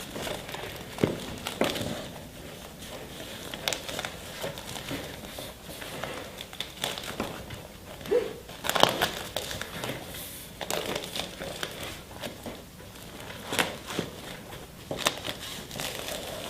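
Softbox diffuser fabric rustling and crinkling while its Velcro edge strip is pressed onto the matching Velcro strip around the softbox, in irregular short crackles with a few louder ones.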